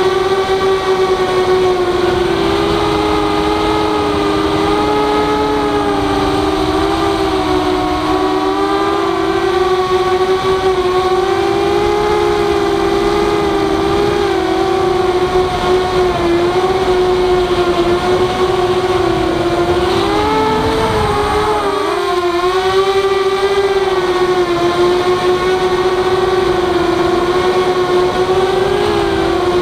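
Walkera F210 racing quadcopter's four brushless motors and propellers whining, heard close up from the onboard camera. The pitch wavers steadily with throttle, then dips sharply and swoops back up about 20 seconds in as the throttle is cut and punched again.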